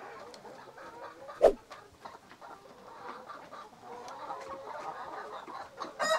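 A flock of Rhode Island Red, Dominant CZ and native hens clucking softly as they feed. There is one sharp, loud sound about a second and a half in, and a rooster starts to crow right at the end.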